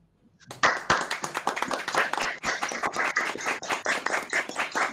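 Applause: rapid hand clapping that starts about half a second in.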